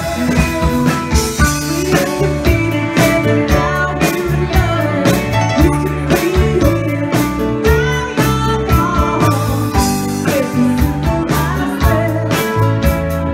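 Live rock band playing: a woman singing over electric bass, electric guitar and a steady drum beat.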